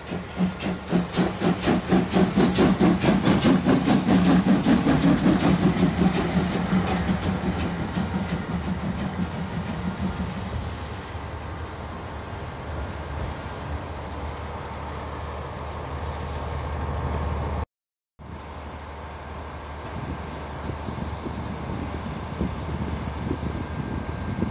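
Steam locomotive chuffing rhythmically, about three exhaust beats a second, loud at first and fading as it pulls away. After a break about three-quarters of the way in, only a quieter steady rumble remains.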